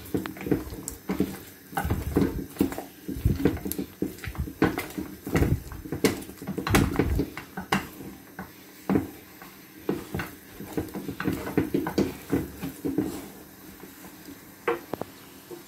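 A spoon stirring and pressing thick banku dough (gari-based) against the sides of an aluminium saucepan, making a run of irregular knocks and thuds against the pot.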